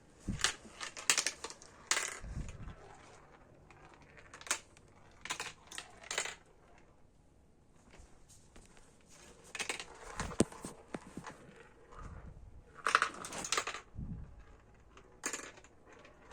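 Marbles clattering and clicking through a plastic MarbleWorks marble run, in irregular bursts of sharp rattles separated by quieter pauses.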